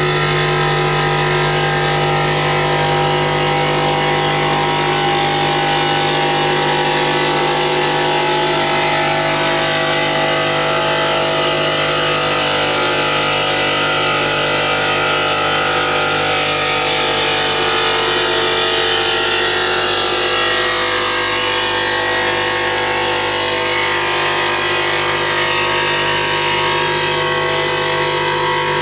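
CNC stone polishing machine running steadily, a constant motor hum with several fixed tones over a hiss, without breaks.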